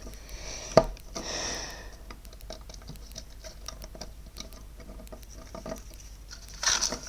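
Small plastic clicks and light rattling from a toy being handled, with one sharp click a little under a second in and a brief rustle near the end.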